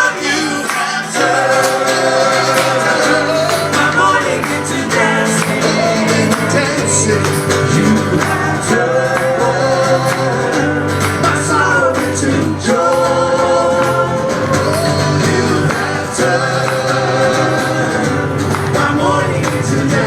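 Gospel worship music: voices singing held notes over a steady bass accompaniment.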